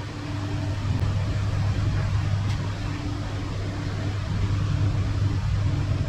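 Steady low mechanical hum, like a motor or engine running.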